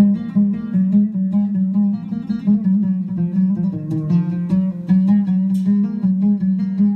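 Oud played with a plectrum: an improvised taksim in makam uşşak, a quick run of short plucked notes over a steady low note.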